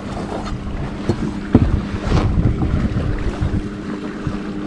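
Wind buffeting the microphone on a fishing boat over a steady low hum, with a couple of sharp knocks in the first half.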